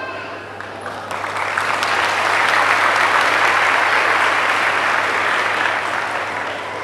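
Audience applauding, swelling about a second in, holding, then fading near the end.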